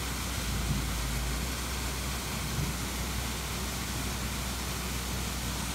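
Small waterfall splashing down a rock face into a shallow stream pool: a steady rush of falling water with a low rumble under it.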